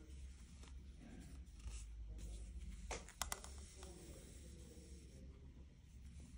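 Faint rustling and rubbing of wool yarn being drawn through knitted stitches with a yarn needle, with a few small sharp clicks about three seconds in.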